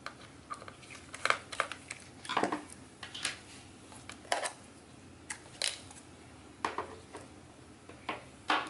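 A dozen or so scattered light clicks and clatters of a 2.5-inch laptop hard drive and its metal retaining bracket being handled and lifted out of a MacBook Pro's aluminium case.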